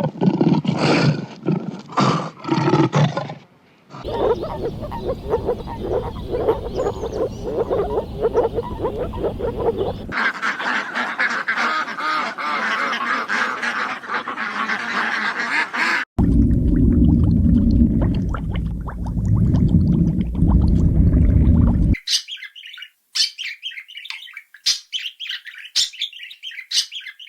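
Calls from several different animals, played one after another in about five short clips that change abruptly. The last clip is a run of short, high calls.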